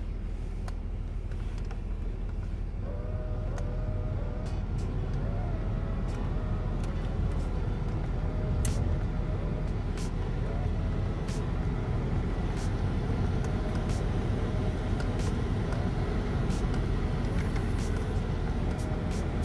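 Jeep Grand Cherokee's climate-control blower fan running with the AC set to cold, blowing air out of the dash vents over the running engine; it grows slightly louder in the first few seconds, with a faint wavering whine and a few light clicks from the dash controls.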